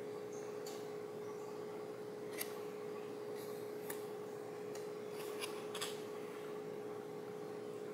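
Paper pieces of a paper-craft apple being bent and handled by fingers: faint rustling with a few short crinkles, the sharpest about two and a half seconds in and a cluster near the six-second mark. A steady low hum runs underneath.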